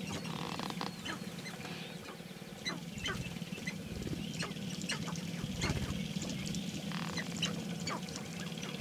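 Lek of displaying sharp-tailed grouse: many birds giving short, sharp clucking and cackling calls, scattered all through, over a constant low drone from the displaying males.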